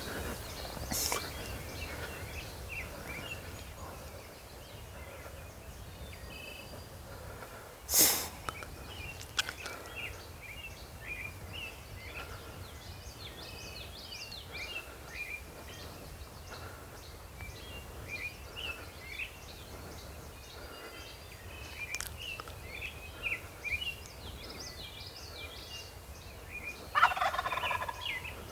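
Wild turkey gobbler gobbling, a rattling call about a second and a half long near the end, while small songbirds chirp throughout. A brief sharp sound comes about eight seconds in.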